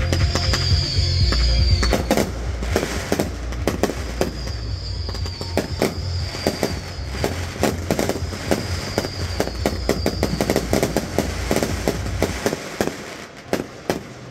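Fireworks display going off in quick succession: rockets launching and shells bursting in a rapid string of bangs and crackles, with a few sharp pops near the end. Music plays underneath and stops shortly before the end.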